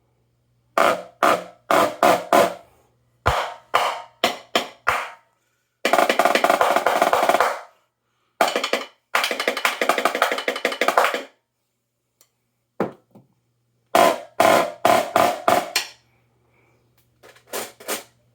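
Dynasty 14x10 marching snare drum, its top head tuned very high, played in short groups of sharp strokes with two rolls of about two seconds each in the middle, a single hit after them, another group of strokes and a few lighter ones near the end.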